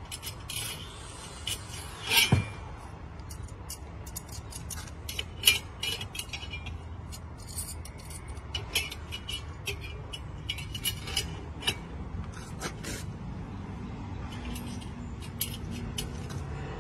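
Steel telescopic outrigger arms of a band saw blade sharpener being slid out and handled: a scattered run of metal clinks and scrapes, with a louder knock about two seconds in.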